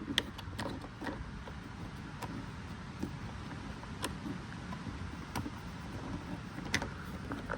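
Faint, scattered light clicks and taps, roughly one a second, over a low steady rumble.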